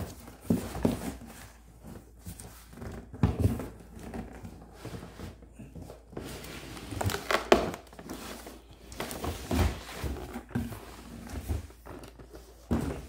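Cardboard shipping box being handled and opened: flaps scraping and rustling, with irregular knocks and thunks, the loudest about halfway through, as a boxed toy blaster is pulled out.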